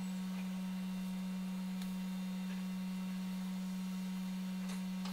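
A steady low hum at one unchanging pitch, with a couple of faint ticks.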